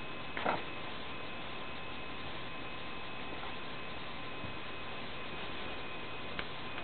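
Steady electrical hum and hiss of room tone, with a brief faint sound about half a second in and a small tick near the end.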